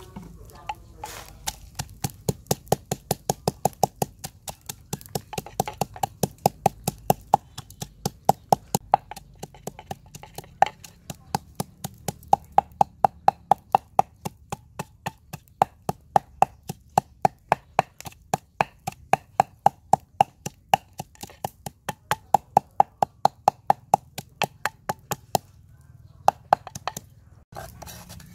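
Wooden pestle pounding red chillies in a wooden mortar: a quick, even run of knocks, several a second, stopping shortly before the end.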